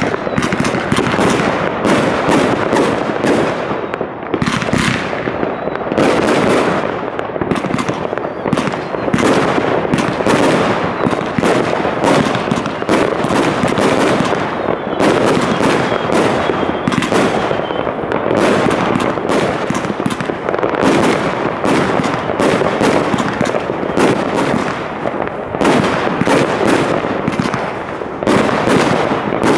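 Fireworks cakes firing in rapid succession: a near-continuous barrage of launches and aerial bangs, dozens of reports following close on one another, with brief lulls around four and fifteen seconds in.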